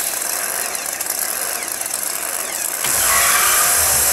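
Engine-like running noise with faint rising and falling pitch, turning louder and deeper about three seconds in as the drag trucks launch.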